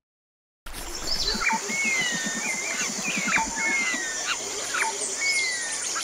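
Tropical forest ambience that starts suddenly after a moment of silence. Several birds call, with repeated falling whistles and short sharp chirps, over a steady high-pitched drone.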